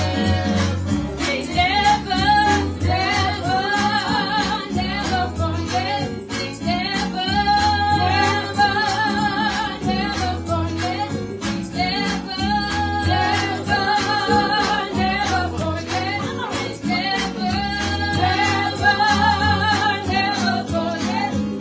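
Two women singing a gospel praise song through handheld microphones, over an instrumental backing with a steady beat.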